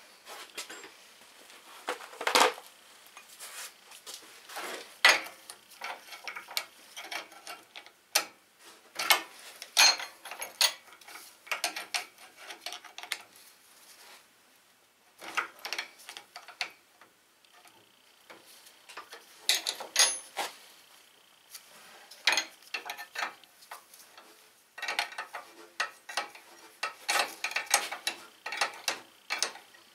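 Hand tools working on bare metal: a wrench clinking and scraping against steel, with scattered clicks, a few sharper knocks and short pauses, and quicker runs of clicking near the end.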